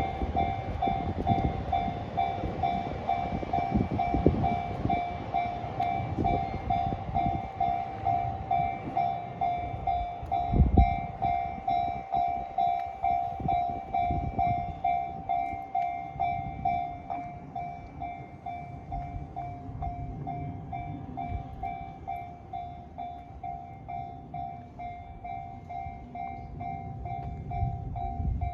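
Japanese level-crossing warning bell ringing steadily, about two strokes a second, while a train runs over the crossing with low rumble and wheel knocks over the rail joints. The train sound is loudest in the first half, with a heavy knock about 11 seconds in, and fades away in the second half while the bell keeps ringing.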